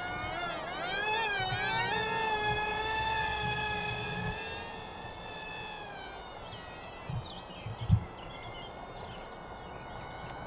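The XK A120 Airbus A380 RC plane's small electric motor and propeller whining at launch, the pitch wavering up and down with the throttle for the first two seconds, then holding steady and growing fainter as the plane flies off. A couple of short low thumps come near the end.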